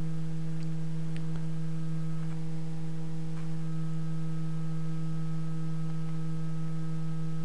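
Prusa Mendel 3D printer's Z-axis stepper motors humming at one steady pitch as they drive the gantry down during G28 homing, with a few faint ticks.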